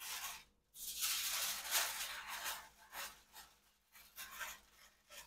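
Aluminium foil crinkling as it is handled and folded, in a long run of rustling for about three seconds, then a few shorter bursts near the end.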